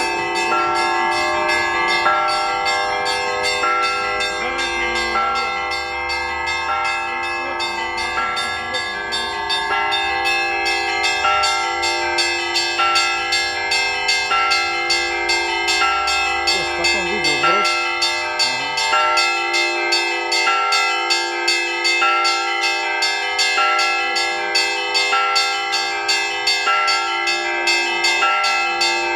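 Russian Orthodox church bells ringing a continuous peal, the call to the evening service: many bells of different pitches sound together in a fast, even rhythm of strikes over the sustained hum of the larger bells.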